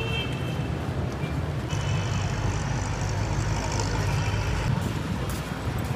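Street traffic: a heavy vehicle's engine rumbling steadily, with a hiss from about two seconds in that lasts about three seconds.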